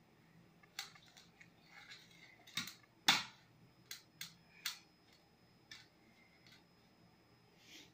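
Quiet, irregular clicks and taps, about a dozen, as hands fasten a belt on a small idol sitting in a steel bowl; the loudest comes about three seconds in.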